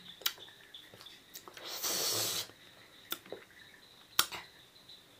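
Mouth sounds of a person eating small juicy sohphie fruit: a few sharp scattered clicks, and a hissing intake of breath lasting about a second, a little before halfway.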